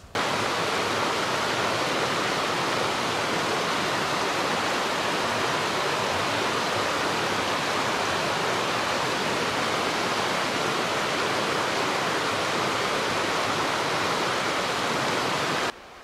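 Steady rush of running water, even and unbroken, cutting off suddenly near the end.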